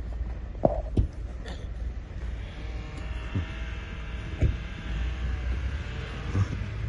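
A low, steady rumble with several sharp knocks. From about two and a half seconds in, a car engine revs as the car drives through snow.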